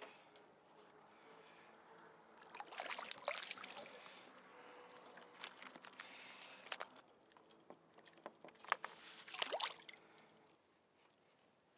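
Water splashing and trickling beside a fishing kayak, with clicks and knocks of handling; the splashing comes in two louder bursts, about two and a half seconds in and again near nine seconds.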